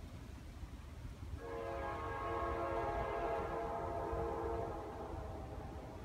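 Distant horn of an approaching GE Dash 9 freight locomotive, sounding one long chord of several notes that starts about a second and a half in and stops near the end, over a low rumble.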